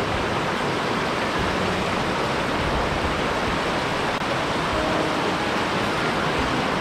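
Mountain headwater stream rushing over rocks: a steady, even rush of water.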